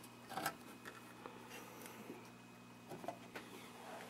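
A handful of faint clicks and snips: side cutters clipping a paper capacitor's leads free of the TV chassis, with wires and tools handled between cuts. A steady low hum sits underneath.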